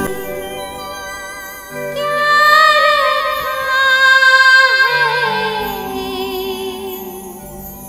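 A woman singing a Chhattisgarhi devotional bhajan, drawing out long held notes with vibrato and ornaments that slowly fall in pitch, over steady held accompanying chords.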